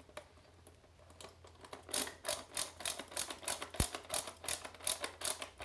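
A hand screwdriver driving a case screw into the plastic housing of a ResMed AirSense 10 CPAP machine: a steady run of sharp clicks, about three a second, starting about two seconds in, with one low thud near the middle.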